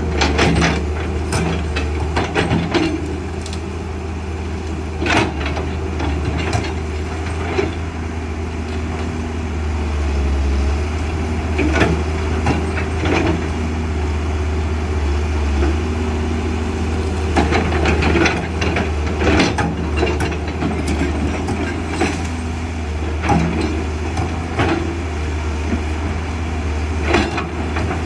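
Caterpillar excavator's diesel engine running steadily, with irregular sharp clanks and knocks from the machine at work.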